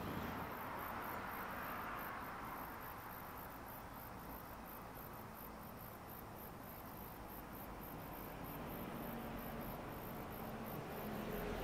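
High-pitched insects chirping in a steady rhythm of two or three pulses a second, over a faint rumble that fades away in the first couple of seconds. Near the end a low hum starts to rise.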